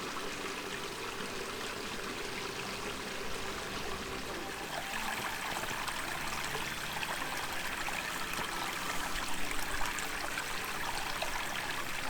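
Small bush stream flowing and trickling, a steady rush of water that grows somewhat louder about five seconds in.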